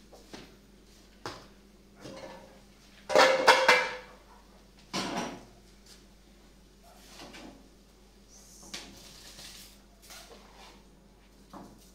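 Metal pots and utensils clanking: a series of separate knocks and scrapes, with the loudest, a ringing clatter, about three seconds in and another sharp clank about two seconds later.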